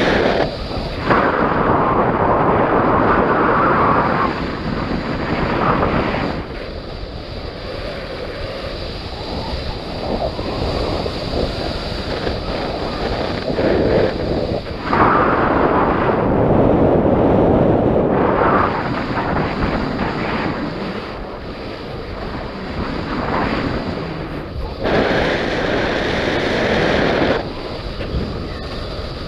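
Wind rushing over the microphone in flight on a paraglider, a loud, even rush that swells and eases in long gusts of a few seconds each.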